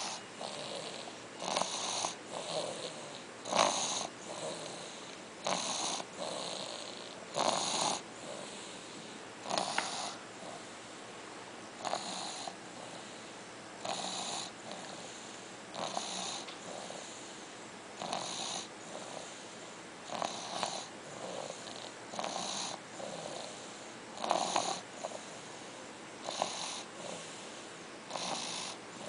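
Snoring: a noisy breath about every two seconds, steady in rhythm, some breaths split into a short in-and-out pair.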